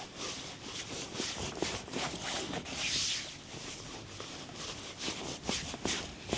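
Hands rubbing and stroking over skin in a series of brushing strokes, a couple a second, with one longer, louder stroke about three seconds in.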